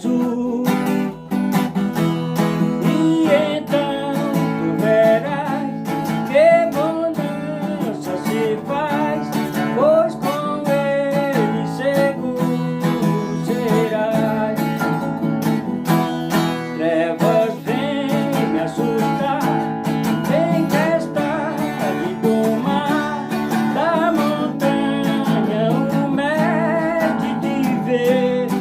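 A Portuguese-language gospel hymn, a man singing over a strummed acoustic guitar.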